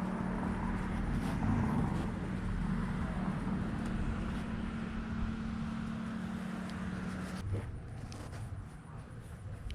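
Car driving, a steady engine hum with road rumble, which drops away about seven and a half seconds in.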